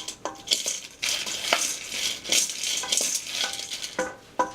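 A spoon stirring food in a pot, with repeated scrapes and clinks against the pot.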